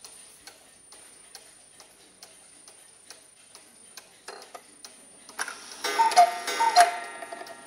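Mechanical Black Forest cuckoo clock ticking steadily, a little under once a second. There are a few clicks as its hands are turned, then it strikes: the cuckoo calls twice near the end, each a two-note falling "cu-ckoo" from its bellows pipes, over the clatter of the striking mechanism.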